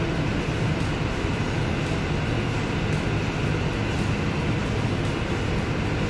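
Steady low machinery hum, continuous and even, with faint rustling of paper pages being handled.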